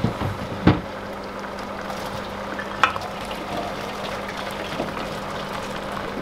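A pot of vegetable stew boiling on the hob with a steady bubbling hiss. Two short sharp knocks come about a second in and again near three seconds.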